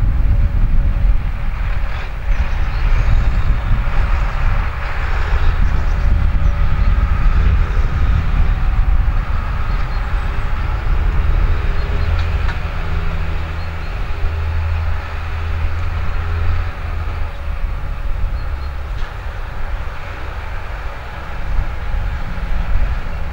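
New Holland 8970A tractor's six-cylinder diesel engine running steadily under load as it pulls a slurry tanker across a field, a continuous low drone that stays loud throughout.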